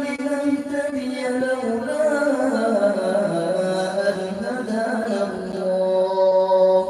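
A male qari's melodic Quran recitation (tilawat): one long drawn-out line held in a single breath, its pitch sinking partway through and staying low to the end.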